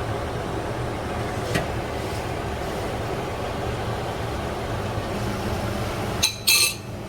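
Steady low machine hum with an even rushing noise, like a fan running, and a light click about one and a half seconds in. Near the end the hum drops out and a brief bright clink or clatter follows.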